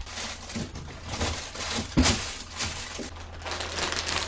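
Large plastic bag rustling and crinkling in irregular bursts as it is lifted and handled.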